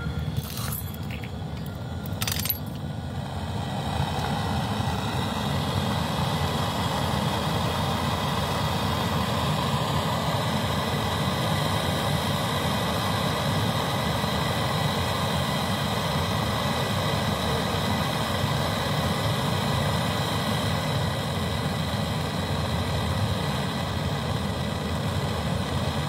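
Gas brazing torch flame hissing steadily on a copper capillary-tube joint that is being brazed red-hot. A couple of sharp clicks come in the first few seconds, then the hiss grows louder and holds steady.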